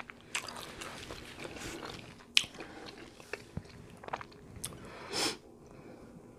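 Close-miked chewing and mouth sounds of someone eating a seafood boil, with scattered wet smacks and sharp clicks, and a short rush of noise about five seconds in.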